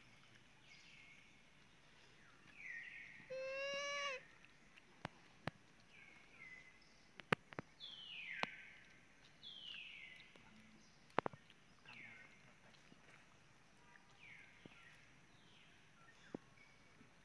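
Infant macaque calling: a string of short, falling squeaks every second or so, with one longer, louder call about three seconds in. A few sharp clicks are scattered through.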